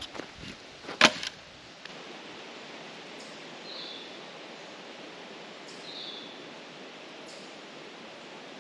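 A few handling knocks and one sharp, loud click about a second in, then a steady, quiet outdoor background with two short high chirps, one in the middle and one a little later.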